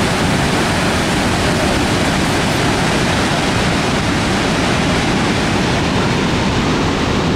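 Lower Falls of the Yellowstone River: a loud, steady rush of plunging water, heard close up at the brink of the falls.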